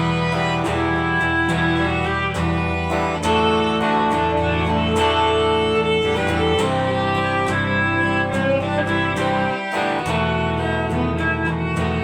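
Instrumental break in a rock song: strummed guitar chords under a held, singing lead melody. The bass drops out briefly near the end.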